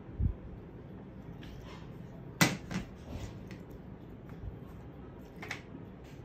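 A dull thump just after the start, then a sharp knock about two and a half seconds in as a drinking glass is set down on a plastic serving tray, followed by a few fainter clicks of food and a small dip cup being handled on the tray.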